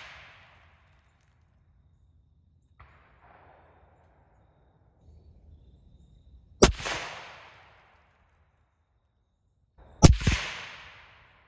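Two suppressed .243 Winchester rifle shots from a Tikka T3, each a sharp crack with a fading echo, about six and a half seconds in and again three and a half seconds later; the second crack is followed almost at once by a second report. The tail of an earlier shot fades out at the very start.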